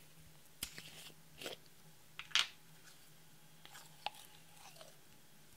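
Small plastic glitter bottle being handled and unscrewed, giving a series of sharp plastic clicks and crackles, the loudest about two and a half seconds in. Near the end a wooden applicator stick scrapes out of the bottle's threaded neck.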